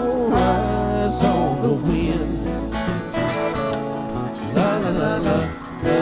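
Live rock band playing: an electric lead guitar picks melodic lines with bent, gliding notes over sustained bass notes and drum and cymbal hits.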